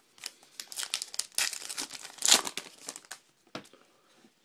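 A trading card pack's wrapper being torn open and crinkled by hand: a run of sharp crackles for about three and a half seconds, loudest just past the middle.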